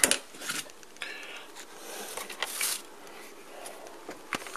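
Handling noises: scattered small clicks and knocks, with a short rustle about two and a half seconds in.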